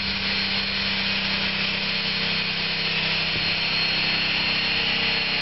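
Steam locomotive standing still: a steady hiss of escaping steam over a low, steady hum.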